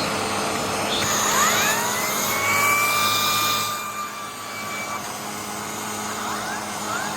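2008 Hoover Rewind Legacy upright vacuum cleaner running, with a whistling tone that rises in pitch about a second in and then holds steady, and short rising whistles near the end.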